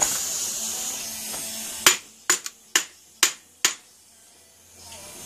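A rustling hiss for about the first two seconds, then five light, sharp hammer taps about half a second apart: a 3-pound hammer tapping the main bearing girdle of a Honda D16A6 engine to break it loose from the block.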